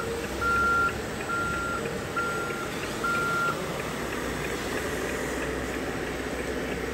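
Reversing-alarm beeper on a radio-controlled construction model: a steady high beep repeating a bit faster than once a second, four beeps that stop about three and a half seconds in. A continuous mixed background noise runs underneath.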